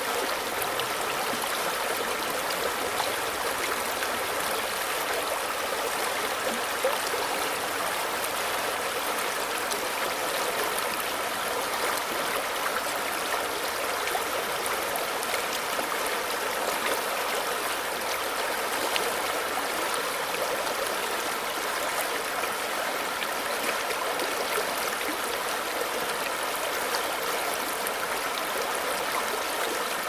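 Shallow forest stream running over pebbles and stones: a steady babble of rushing water with many small splashes and gurgles in the ripples.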